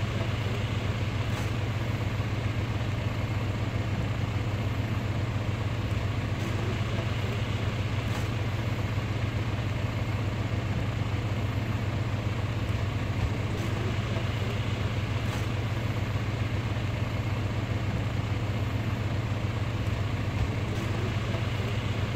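A motor running steadily at constant speed: a loud, even low hum that does not change.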